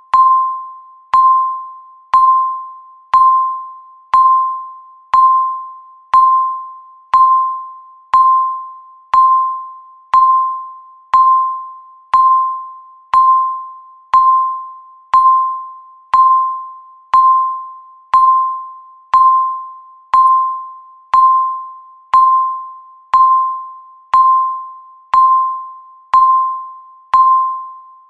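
Countdown timer's electronic beep, a single mid-pitched tone sounding once a second to mark each second of the count. Each beep starts sharply and fades away before the next.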